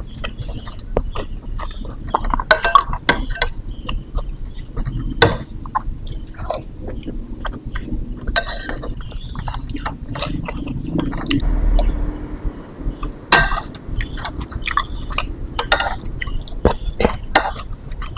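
Close-miked eating of lontong kikil: wet chewing and mouth sounds of rice cake and chewy beef-foot tendon, with frequent sharp clinks of a spoon against the dishes.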